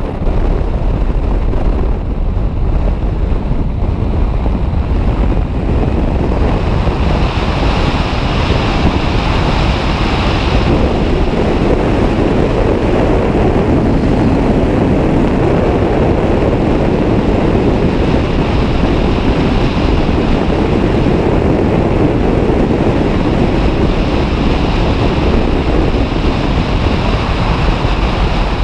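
Wind blasting over the microphone of a camera on a moving vehicle: a loud, steady rush with a deep rumble. A higher hiss strengthens for a few seconds twice.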